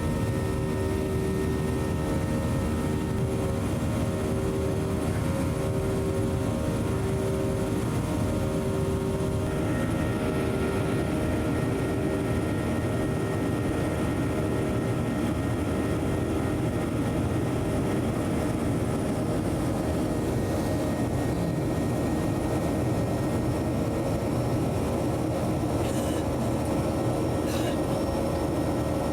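Boeing 737-900 cabin noise in the climb after take-off: a steady rush of air with the CFM56 engines' drone. For the first nine seconds or so a hum swells and fades about once a second, then the tones shift and the drone evens out.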